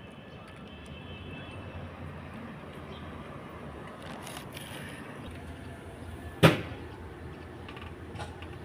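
Steady outdoor background noise, with one sharp knock about six and a half seconds in.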